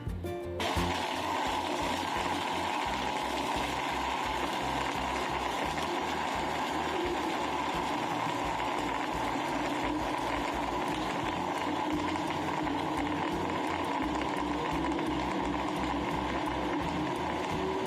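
Electric blender running steadily, blending a drink with ice; it starts about half a second in as music cuts off.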